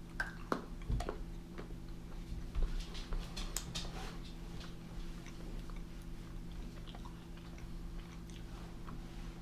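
Close-up chewing of a bite of Mr Beast Feastables almond chocolate bar, with clicky crunches mostly in the first four seconds, loudest about three seconds in, then quieter chewing.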